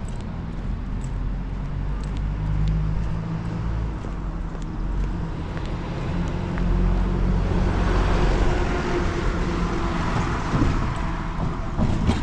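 Commuter train running: a steady low rumble with a motor hum, and a louder swell of rushing noise from about eight to eleven seconds in.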